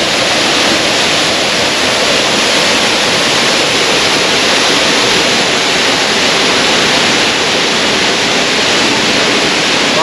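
Ripaljka waterfall on the Gradašnica river pouring into its plunge pool: a loud, steady rush of falling water.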